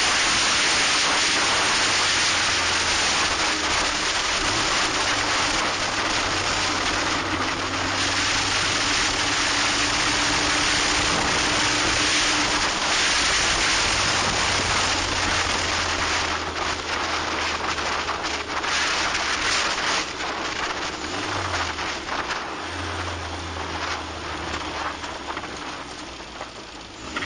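Heavy wind and road rush over an action camera mounted low on a Locost kit car, with the car's engine running steadily at low revs underneath. In the last few seconds the rush eases and the engine note dips and rises a couple of times as the car slows.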